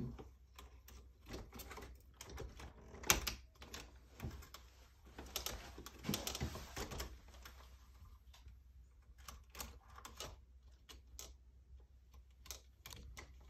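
Irregular plastic clicks and rattles as small Molex wire-harness plugs are worked off a mini-split air handler's control board, with one sharper click about three seconds in and a longer spell of handling noise around six seconds.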